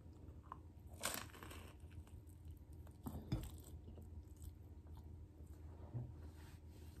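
A person chewing and biting food close to the microphone, faint, with a couple of slightly louder crunchy bites about a second in and again a little after three seconds.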